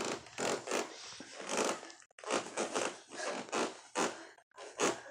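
Scuffing and rustling of a gymnast's feet, hands and clothing on the floor as she attempts a front aerial, in a string of short, irregular noisy bursts.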